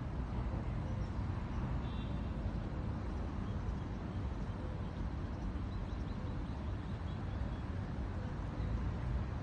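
Small birds chirping faintly: a brief cluster of chirps about two seconds in and a few more around six to seven seconds. A steady low rumble runs underneath and is louder than the birds.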